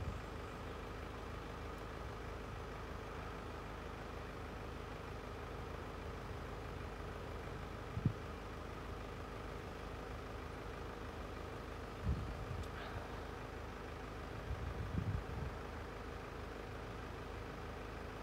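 Steady low hum like an idling engine, with a few short soft thumps.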